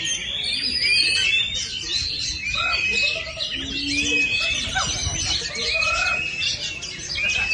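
Oriental magpie-robin (kacer) singing a fast, unbroken run of varied whistles and chirps, with other songbirds' calls overlapping.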